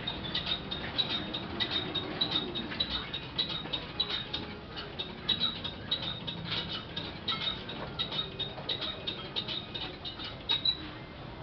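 A pointed carving tool scratching and clicking over an unfired clay jar as relief decoration is worked in: many small irregular ticks and scrapes, several a second, some with a thin high squeak. They stop near the end.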